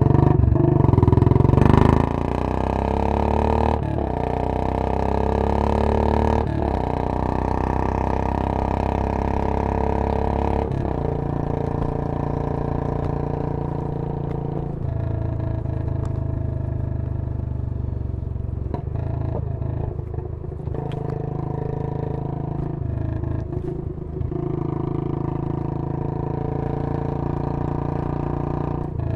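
Royal Enfield Bullet 500's single-cylinder four-stroke engine pulling hard. Its pitch climbs and drops back sharply four times in the first ten seconds or so, like upshifts through the gears, then it runs at a fairly steady speed.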